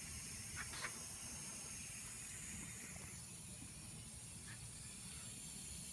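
Faint steady hiss of room tone with low background rumble, and a soft brief sound about a second in.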